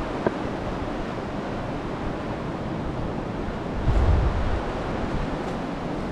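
Steady rushing of the Youghiogheny River's whitewater, with a brief low rumble of wind on the microphone about four seconds in and a small click near the start.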